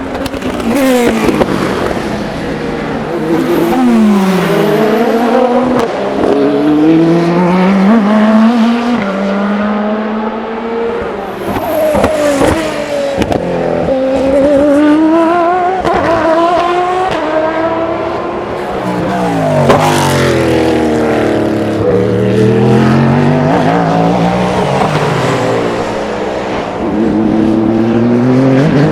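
Endurance race cars lapping one after another through a slow corner, each engine note falling as it brakes and shifts down, then rising again as it accelerates away. A few sharp cracks are heard, around 12 and 20 seconds in.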